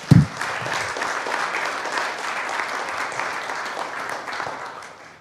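Audience applauding, fading out near the end. Just at the start, a handheld microphone is set down on the lectern with a low thump, the loudest moment.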